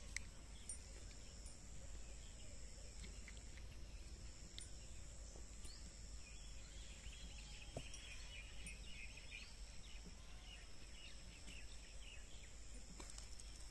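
Faint outdoor ambience: a steady high insect hiss, with faint bird chirps in the middle. A few soft clicks come from plastic tripod parts being fitted together.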